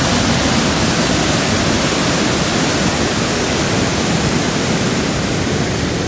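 Steady roar of rushing water from Niagara Falls, an even, loud rush without breaks.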